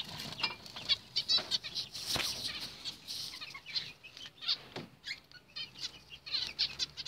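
Zebra finches in an aviary cage giving many short, high calls, with a flutter of wings about two seconds in as a bird flies across the cage.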